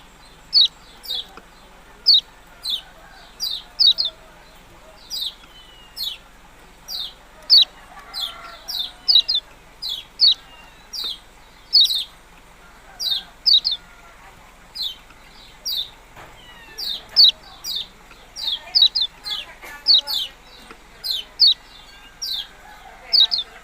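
A kecial kuning, a small yellow songbird, repeatedly giving sharp 'ciak' chirps, each a quick downward slur, often in close pairs, about one to two a second.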